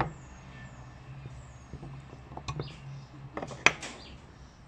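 Sharp metal clicks and light knocks from a threaded steel bolt being worked out of the bolt-holding hole of a pair of combination pliers and laid on wooden boards. One sharp click comes at the start and a cluster of clicks about three and a half seconds in, over a steady low hum.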